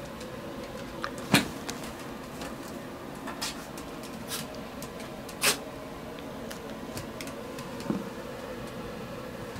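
A handful of short, sharp knocks and bumps from a husky puppy tussling over a tug toy, the loudest about a second in and another near the middle, over a steady background hum.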